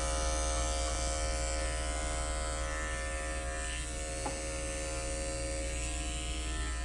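Andis five-speed electric dog clippers running with a steady buzz while clipping a shih tzu's coat.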